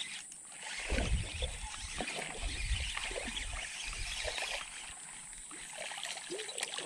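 Water sloshing and splashing as a hooked snakehead is reeled in through a shallow ditch, with the small clicks of a spinning reel being cranked. A low rumble of handling starts about a second in and fades after a few seconds.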